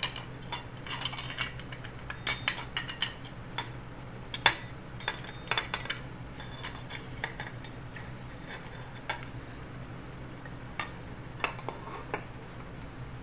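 Steel wrench clicking and clinking against a metal pipe fitting as the Teflon-taped fitting is tightened into a new water pump: a run of sharp metal clicks, closely spaced in the first half and sparser later, over a steady low hum.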